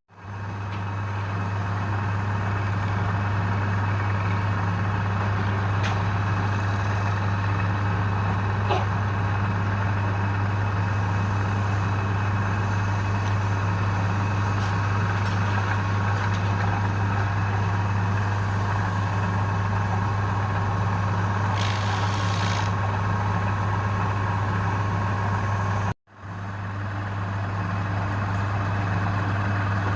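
Wood lathe motor running with a strong, steady low hum. The sound breaks off abruptly about 26 seconds in and starts again straight away.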